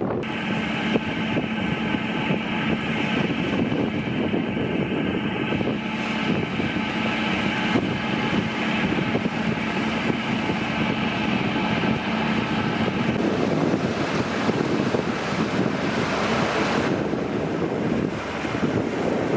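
Wind rushing over the microphone aboard a cruise ship, over the ship's steady engine hum, which drops out about two-thirds of the way through.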